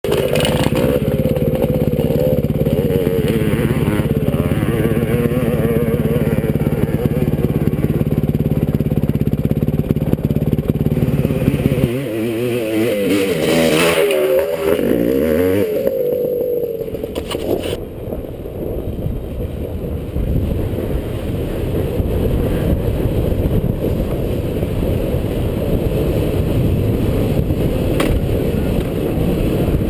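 Off-road dirt bike engines: a bike running steadily at a low, even pitch, then an engine revving up and down in pitch for a few seconds as a rider takes a jump, then, after a cut, the camera's bike riding along a dirt trail with a rougher, noisier engine sound.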